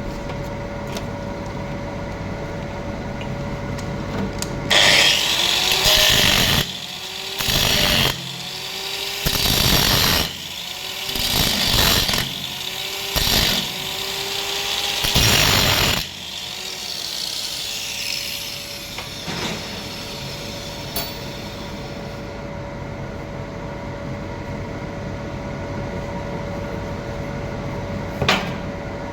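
Power tool, most likely an angle grinder, grinding against metal in about six short bursts, its pitch dipping under load each time, over a steady hum.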